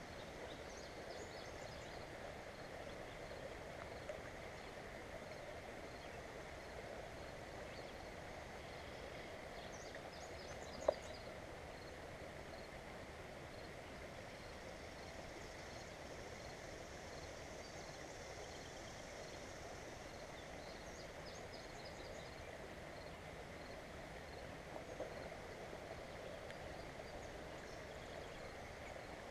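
Steady rush of flowing creek water, with faint birdsong in short phrases every few seconds. A single sharp click about eleven seconds in.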